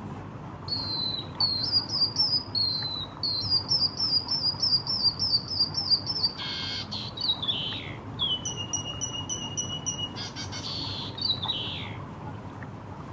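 A caged white-headed munia (emprit kaji) singing a canary-like song: a run of quick repeated chirps, a raspy burst, falling notes, then a long steady whistle followed by another raspy burst and a falling phrase.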